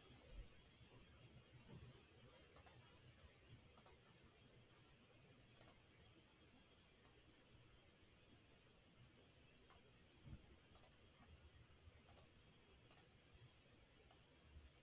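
Computer mouse button clicking, a scattered series of short, sharp clicks, several in quick pairs, over faint room tone.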